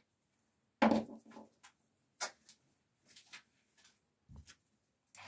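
A few light knocks and clicks from small objects handled on a wooden workbench. The loudest is a single knock a little under a second in, followed by scattered fainter taps with quiet between them.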